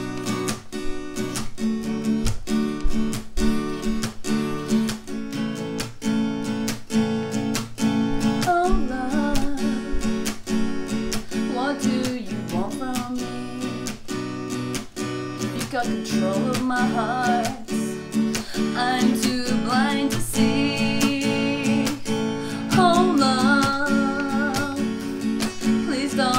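Acoustic guitar strummed in a steady rhythm, with a voice singing over it from about a third of the way in.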